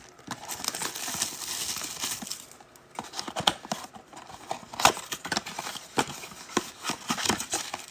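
Cardboard blaster box of trading cards being opened and its foil card packs pulled out and handled: rustling and crinkling with many light taps and knocks, a few sharper ones through the middle and near the end.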